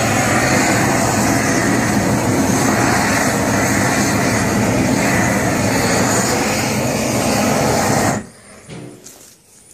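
Handheld gas torch running with a loud, steady hiss as its flame chars the surface of a wooden post for shou sugi ban. The sound drops away abruptly about eight seconds in.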